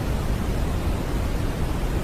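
Continuous white-noise sleep track: an even, unbroken hiss, weighted toward the deep end like pink noise, with no change in level.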